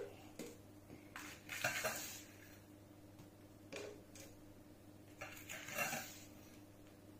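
A metal spoon scraping and clinking in a small steel bowl of sand and tipping spoonfuls of sand into a plastic bottle, in several short, quiet spells.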